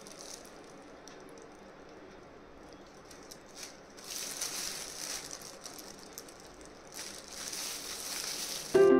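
Soft rustling as a hair-dye tint brush is stroked through hair and loose plastic gloves crinkle, in two longer swishy stretches about four and seven seconds in. Background music cuts in just before the end.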